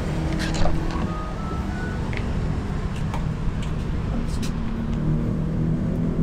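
A car's front door latch clicks sharply as the door is opened, about half a second in, followed by a few lighter clicks of the door and trim. Under it runs a steady low rumble.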